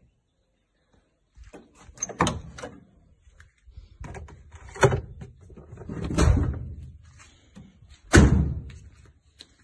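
Several knocks and thuds from a Maruti Gypsy's body and door as it is handled. The loudest, about eight seconds in, sounds like the car door being shut.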